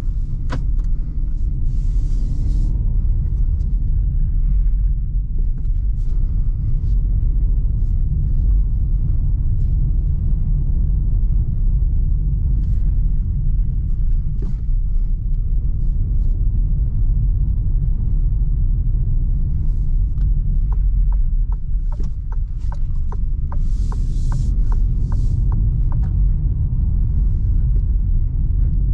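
Low steady rumble inside the cabin of a Citroën C4 with its 1.2 PureTech three-cylinder petrol engine, driving in town, engine and tyre noise together. A run of evenly spaced clicks sounds for a few seconds near the end.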